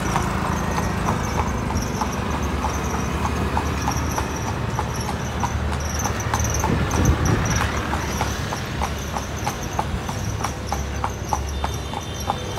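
A horse's hooves clip-clopping steadily on an asphalt road, about three beats a second, over a steady rumble of street traffic. A passing vehicle's engine swells louder about halfway through.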